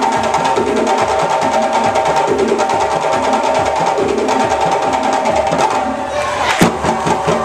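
Ensemble of djembe hand drums playing a fast, dense rhythm together. The playing drops away just before six seconds in and ends on one loud unison stroke.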